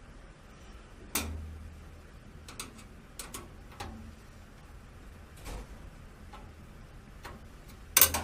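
Irregular clicks and knocks of a screwdriver and self-tapping fan screws against a computer case, with a sharp knock about a second in and the loudest one near the end.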